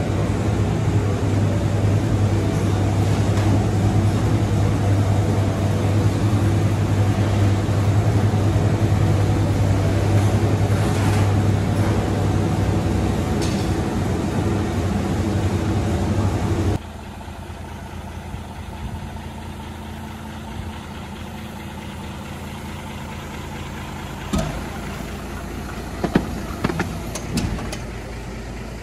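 Loud, steady machine hum with a deep drone from the wall-mounted fan units of a tray-rack room, cutting off suddenly about two-thirds of the way through. A quieter steady hum follows, with a few sharp knocks near the end.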